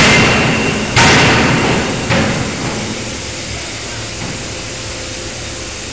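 A 5-ton electro-hydraulic die forging hammer striking hot steel in a closed die: three heavy blows about a second apart, each with a short metallic ring, the third lighter. After the blows a steady machinery noise goes on.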